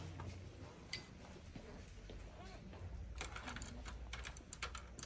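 A semi-dry synthetic brush dabbing and scratching on textured watercolour paper, giving one sharp tick about a second in and then a quick run of light ticks and taps from about three seconds in, over a low steady room hum.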